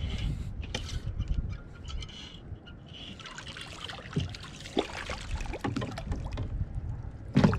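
Water splashing and dribbling as a hooked largemouth bass thrashes at the surface beside an inflatable kayak, with scattered short knocks; the splashing is busiest from about three to five seconds in.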